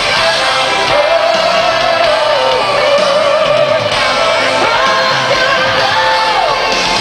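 Live pop concert music over a stadium sound system: a singer holds long notes that slide between pitches over the full band.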